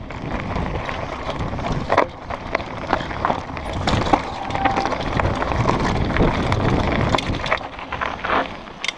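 Downhill mountain bike running fast over a rocky dirt trail and onto gravel. Wind buffets the camera microphone over a continuous rumble of tyres on dirt and stones, with sharp clattering knocks as the bike hits rocks, one about two seconds in and a couple around four seconds.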